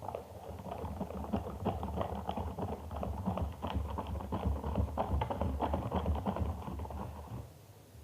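Rapid, irregular sticky clicks and squelches of homemade gummy slime being mixed, stopping about seven seconds in.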